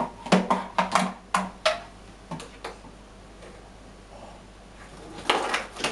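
Light knocks and clicks of a plastic spoon against a plastic tub in a stainless steel kitchen sink, about half a dozen in quick succession at the start, then quiet, then a short louder noise near the end.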